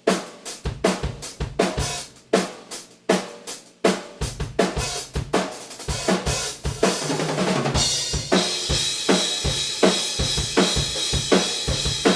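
Acoustic drum kit played, heard raw and unprocessed through a distant pair of Rode NT-5 room microphones. It opens with spaced kick and snare hits, and about eight seconds in a steady cymbal wash comes in over a denser beat.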